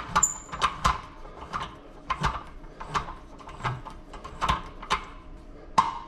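Metal clicks and knocks as a spring-loaded pop-pin knob is worked into the steel height-adjustment bracket of a gym machine. About a dozen sharp clicks come at irregular intervals.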